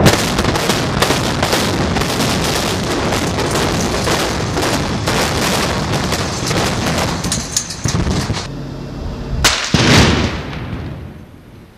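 Explosive demolition charges going off in a rapid crackling series, merging with the noise of a concrete high-rise tower collapsing. Near the end a second sharp blast and a short burst of charges follow, then fade.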